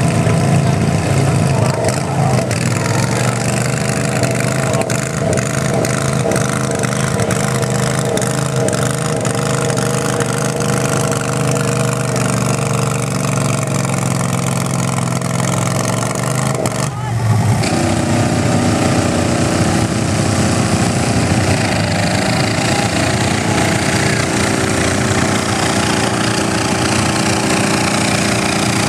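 Small single-cylinder-type garden tractor engines running hard under load while dragging a weighted pulling sled. The engine note holds fairly steady, then breaks off abruptly about 17 seconds in and carries on at a different pitch from another tractor's pull.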